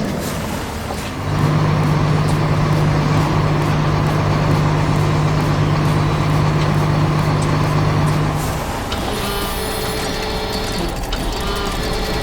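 Heavy truck engine running steadily: a loud, low, even hum starts about a second in and stops about eight and a half seconds in. After it, fainter steady mechanical tones continue.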